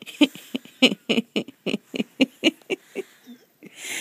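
Pug breathing in quick, even puffs, about four a second, then one longer airy breath near the end.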